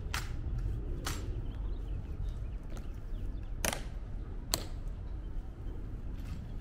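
Sharp clicks from the Tomb sentinels' drill, heel strikes and rifle handling of the changing of the guard: two close together right at the start, two more a few seconds later, over a steady low rumble.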